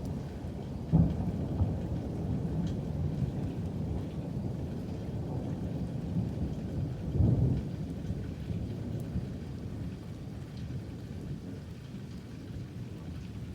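Thunder rumbling from a lightning storm, swelling louder about a second in and again around seven seconds, then easing off toward the end.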